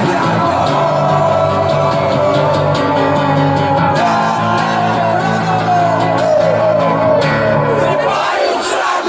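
Rock song with a male voice singing and shouting over held bass and guitar notes; the low end drops away near the end.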